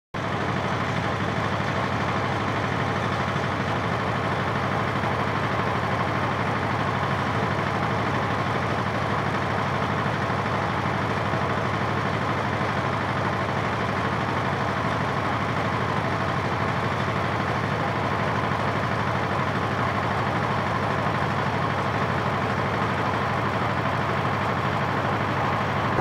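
An engine running steadily at one constant speed, an even low hum that does not change.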